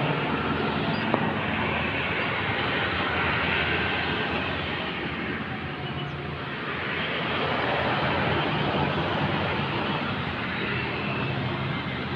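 Road traffic passing: steady engine and tyre noise with a low engine hum underneath. It dips about halfway through and swells again.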